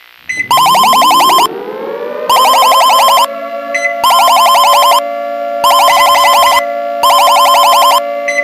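Emergency alert system alarm: about one-second bursts of rapid, high pulsing beeps repeat five times with short gaps, over a siren whose several tones rise in pitch over the first two seconds and then hold a steady chord.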